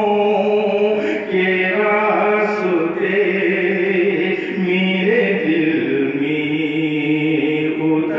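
A man's voice chanting melodic Islamic recitation into a microphone, holding long, wavering notes.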